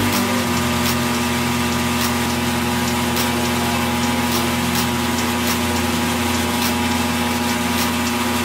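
Milling machine spindle running steadily at a constant pitch while a twist drill bores into a metal part.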